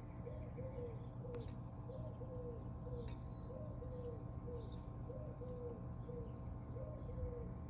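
A dove cooing a three-note phrase over and over, five times, about every second and a half. Faint chirps of small birds sound now and then above it.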